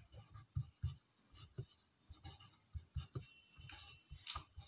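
Pen writing on paper: a faint run of short, irregular scratches and soft taps as the pen strokes out handwritten words.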